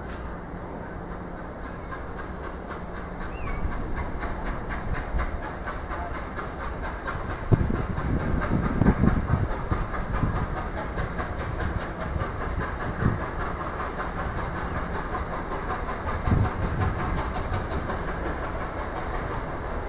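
LNER Peppercorn A1 Pacific steam locomotive 60163 Tornado approaching under steam with a train, its exhaust beats and hiss of steam growing louder, with wheels clicking over the rails. A few low thumps come in from about a third of the way through.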